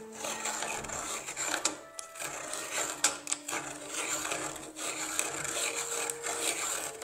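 Old hand-cranked pencil sharpening machine shaving a wooden pencil as the crank is turned: a steady dry rasping of the cutters on the wood, with scattered clicks from the mechanism.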